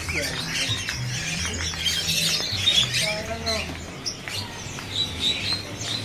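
Many caged songbirds chirping, trilling and calling at once, a dense overlapping chatter of short high calls, over a steady low hum.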